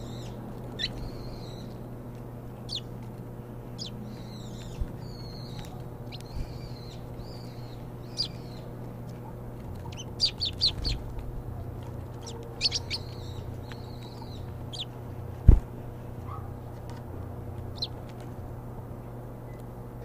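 Eurasian tree sparrows chirping while feeding at a tray feeder, with scattered sharp clicks and one loud thump about fifteen seconds in, over a low steady hum.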